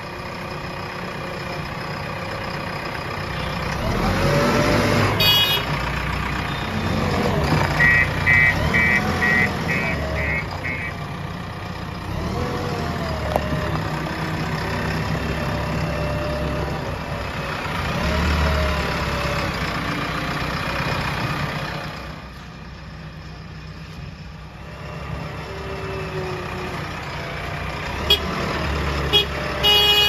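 JCB 3DX backhoe loader's diesel engine running under load, revving up and down repeatedly as the loader bucket works. About a third of the way in comes a short run of quick high beeps, about two a second, and there are a few sharp metallic knocks.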